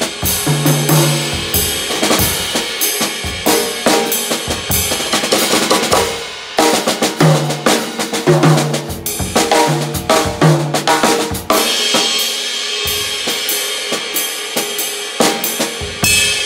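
KUMU acoustic drum kit played with sticks: a busy groove of snare, bass drum and cymbal strokes, with runs of low pitched drum hits about a second in and again from about seven to eleven seconds in. Near the end the strokes thin out and the cymbals are left ringing and fading.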